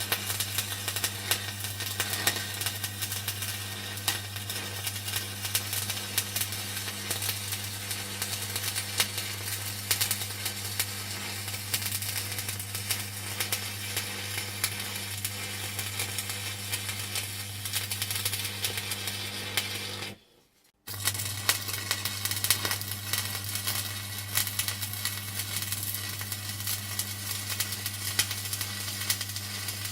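Electrode (stick) welding arc on a thick-walled pipe joint, crackling and sizzling steadily over a low hum as the joint is filled over the argon root pass. It breaks off for under a second about twenty seconds in, then resumes.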